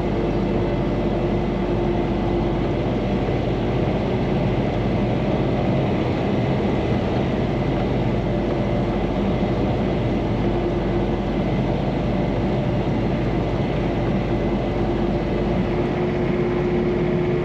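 Tractor engine running steadily under load while pulling a hay tedder, an even drone with a constant hum throughout.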